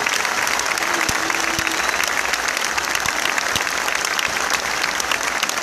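Large crowd applauding: many hands clapping in a dense, steady patter.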